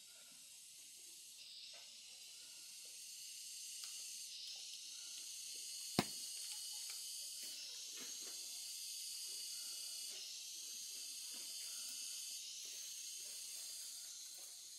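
A steady high-pitched hiss that swells and drops back in waves every few seconds, with one sharp click about six seconds in.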